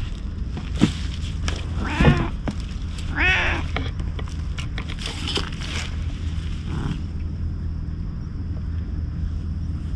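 Orange-and-white cat meowing twice, short calls about two and three seconds in, over a steady low rumble with a few scattered clicks and rustles.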